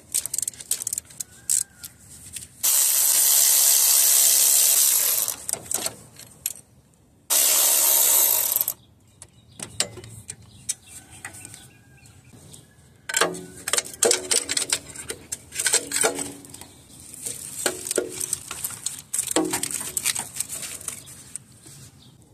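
A power tool runs in two loud bursts of a few seconds each while a 14 mm bolt is loosened. Later come runs of quick ratchet-like clicks and metal clinks.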